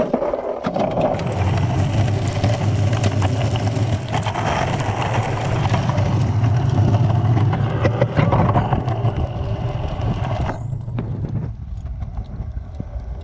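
Cruiser skateboard's wheels rolling on a concrete sidewalk: a steady low rumble with scattered clicks and clacks, which drops away about ten and a half seconds in.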